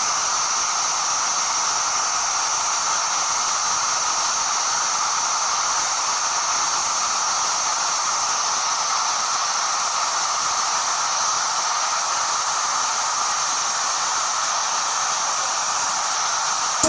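Waterfall rushing: a steady, even noise of falling water with no breaks.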